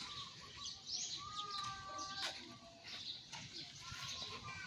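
Small birds chirping repeatedly, with one longer held call with a steady pitch lasting about a second, a second in.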